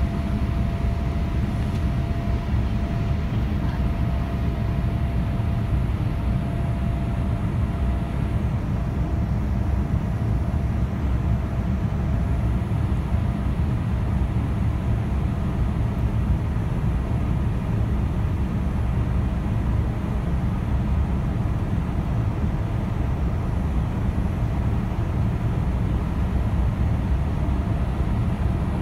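Steady jet engine and airflow rumble heard inside the cabin of a Boeing 787-8 in flight, from a seat beside the wing. A faint steady tone fades out about eight seconds in.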